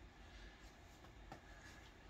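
Near silence, with a few faint soft taps and rustles from a hand playing with a cat on a bedspread.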